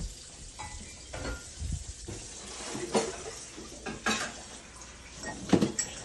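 Kitchen clatter: dishes and cutlery clinking and knocking now and then, about half a dozen separate knocks over a faint steady background hiss, as dishes are washed and food is prepared.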